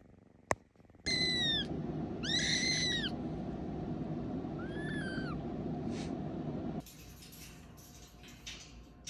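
Kitten mewing: three short, high-pitched cries, each rising and falling in pitch, over a steady low rumble that cuts off abruptly near the end.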